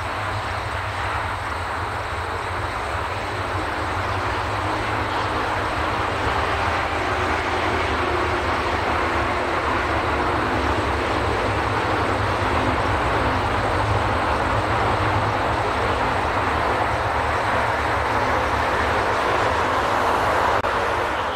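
Air Canada Boeing 777's twin GE90 turbofans at takeoff power during the takeoff roll, a steady jet roar over a deep rumble that grows slowly louder as the airliner passes.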